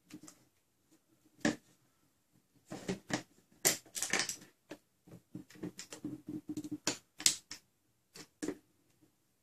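Small hard plastic and metal blaster parts clicking and clacking against a clear plastic shell as the trigger and catch are fitted, in irregular taps that bunch into a quick run of clicks about three seconds in.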